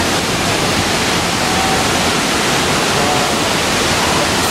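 A flood of water gushing and pouring down from a staged water main break, one steady, loud rush of water.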